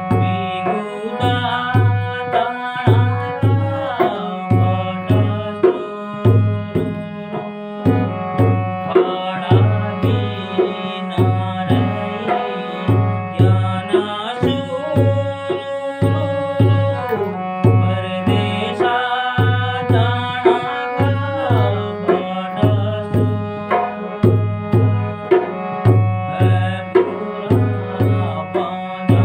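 Harmonium playing a Kumaoni folk melody over a steady tabla-style drum beat. A man's singing voice comes in at times.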